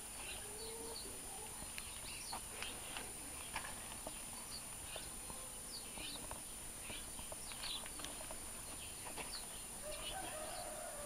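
Faint farmyard birds: small birds chirping in short, scattered calls, with chickens clucking and a longer, lower call near the end.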